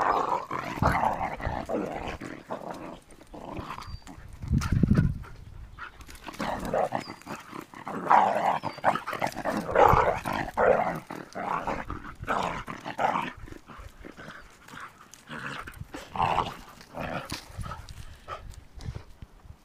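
Two dogs play-fighting, with rough play growls coming in irregular bursts, loudest a little under halfway through.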